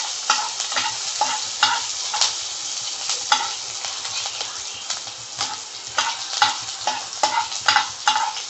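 Chopped green chillies and capsicum sizzling in hot oil with mustard seeds and garlic in a pan, being stirred, with about two scraping strokes a second over the steady sizzle.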